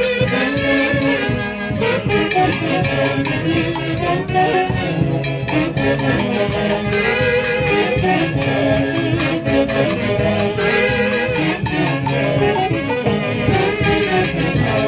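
A Peruvian Andean orquesta típica plays upbeat dance music: a full band with a steady beat and stacked melody lines, with no pause.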